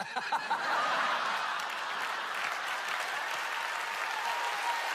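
Large audience applauding, a steady, dense wash of clapping.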